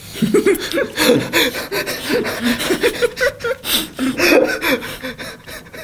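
Men laughing hard, in short, breathy bursts of laughter.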